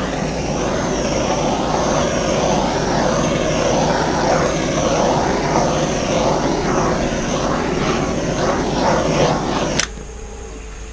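A handheld heat tool such as is run over wet pour paint, blowing a steady rush that cuts off suddenly about ten seconds in.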